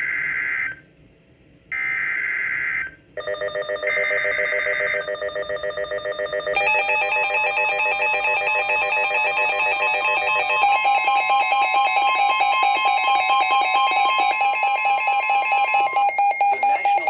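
Emergency Alert System SAME header on NOAA Weather Radio: three short bursts of screeching digital data tones, then a fast-pulsing electronic alarm layered with the steady 1050 Hz weather radio warning tone, announcing a severe thunderstorm warning.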